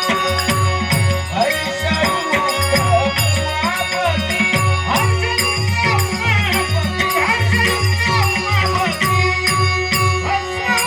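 Traditional Dashavatar accompaniment with a steady rhythm of drum strokes and clinking hand cymbals under held keyboard-like drones, with a wavering melody line on top.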